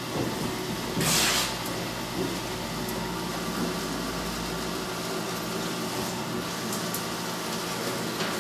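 Electric office paper shredder running steadily as artwork on paper is fed through it. A short, loud rustle of handled paper comes about a second in.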